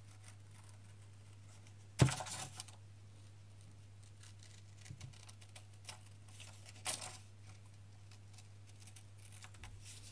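Paper being cut by hand into a strip along a drawn line: a sharp cut about two seconds in that trails off briefly, a few faint ticks, and a second cut around seven seconds.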